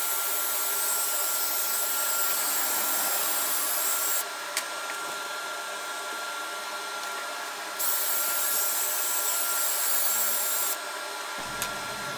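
Shop vac running steadily on suction, with a constant high whine. Over it, a louder rasping scrub of the LintEater rotary brush being spun by a cordless drill inside the dryer vent pipe; it stops about four seconds in, starts again about eight seconds in, and stops once more near the end.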